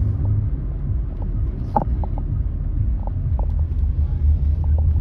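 A car running on the road, heard from inside the cabin as a steady low rumble, with a few brief faint clicks over it.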